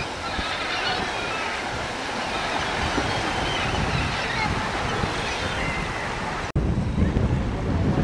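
Sea surf washing onto a beach with wind buffeting the microphone; the low wind rumble grows louder after an abrupt cut about six and a half seconds in.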